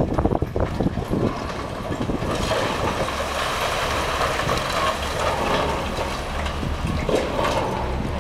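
High-reach demolition excavator running steadily while its hydraulic crusher jaws chew through a concrete building frame. There are cracking knocks of breaking concrete in the first second and again about seven seconds in, and a rushing hiss of rubble pouring down in the middle.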